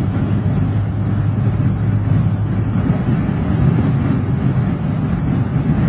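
Steady low rumble of engine and tyre noise from inside a vehicle driving at highway speed.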